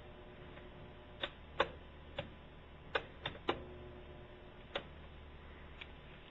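About eight sharp, irregular clicks or ticks over a few seconds, the loudest near the start, over a faint steady hum.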